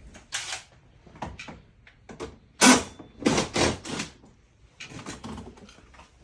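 Knocks and clatter of car body parts being handled during front bumper removal: scattered short knocks, a loud clunk about two and a half seconds in, then a quick run of several more.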